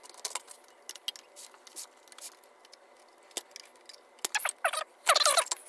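Fast-forwarded workshop sound: quick clicks and rattles of chainsaw parts being handled, with a short burst of sped-up, squeaky voice near the end.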